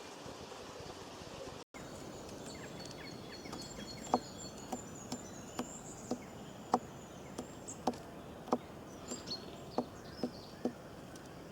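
Outdoor ambience with high, thin chirping bird calls, and a run of short soft taps about one every half second to second, which are the loudest sounds.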